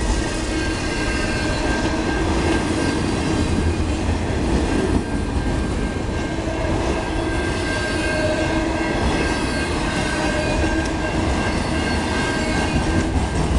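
Freight train of autorack cars rolling steadily past a grade crossing: continuous wheel-on-rail noise with a deep rumble, and a thin steady high tone running through it.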